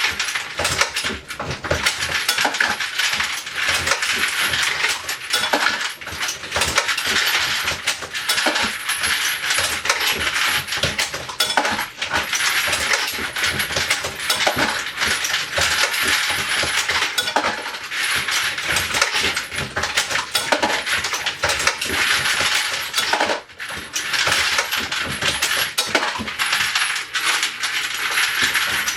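Continuous metallic clinking and clatter of brass cases and bullets jostling in the feeders of a Dillon XL650 progressive reloading press: the case feeder and a motor-driven 3D-printed bullet collator running. It briefly drops off about 23 seconds in.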